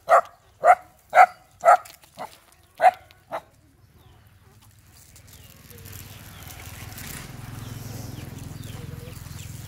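A brown dog barking in a run of short, sharp barks, about two a second, stopping about three and a half seconds in. From about five seconds in a steady low hum with background noise takes over.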